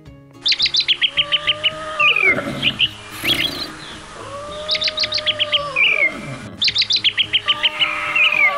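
Birdsong sound effect looped: a rapid trill of short high chirps and a few falling chirps, with a lower drawn-out call that slides down in pitch, repeating three times. Soft background music with steady held notes runs underneath.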